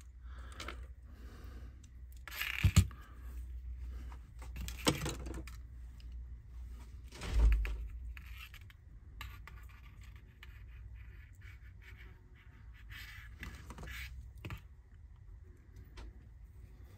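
Small clicks, scrapes and knocks of a plastic-and-metal model locomotive motor bogie being handled and reassembled on a workbench, with a sharp knock about 3 seconds in and a duller thump about 7 seconds in, then fainter fiddling as a small screwdriver works a screw into it.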